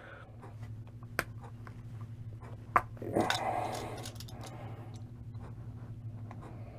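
Small clicks and handling noises as a revolver's rubber grip is worked and its plastic panels and stored pin are pried out with a small screwdriver, over a steady low electrical hum. A brief low voice-like murmur comes about three seconds in.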